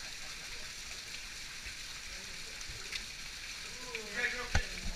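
Steady rush and splash of water as hikers wade through a flooded slot canyon, with a single sharp knock near the end.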